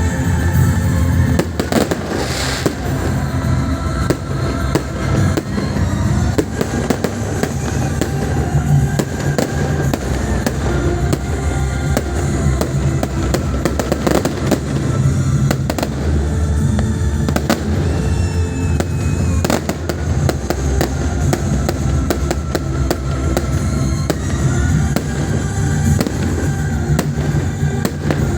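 New Year's fireworks going off densely, a rapid string of bangs and crackles, with music playing underneath throughout.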